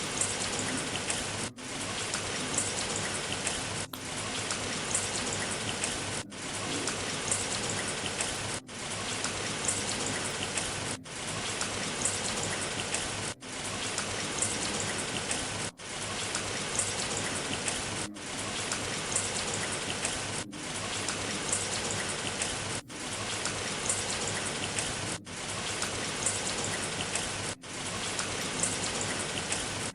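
Steady rain falling, an even hiss with drops pattering on a surface, broken by a brief dip in level about every two and a half seconds.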